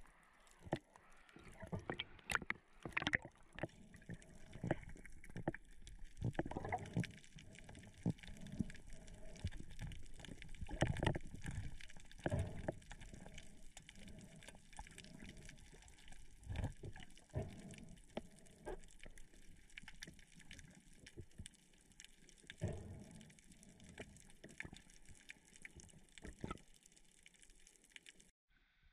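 Water sloshing and gurgling around the camera, with many irregular knocks and thumps. It cuts off suddenly near the end.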